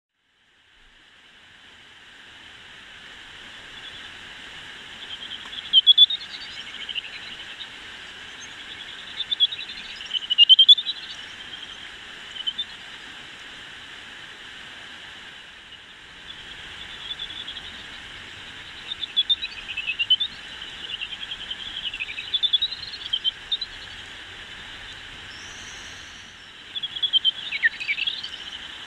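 Greater horseshoe bat echolocation calls heard through a bat detector: clusters of rapid warbling chirps over the detector's steady hiss. The chirps come and go several times, loudest around 6 and 10 seconds in and again near the end.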